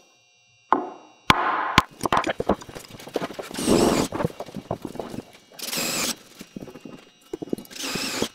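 A wooden mud sill knocking as it is handled on the concrete block, with two sharp clicks early on, then a power drill boring bolt holes through the sill in three short bursts.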